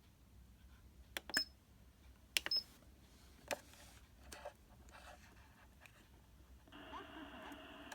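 Several soft clicks, two of them about a second apart each with a short high beep. Near the end a faint, tinny voice-like sound starts.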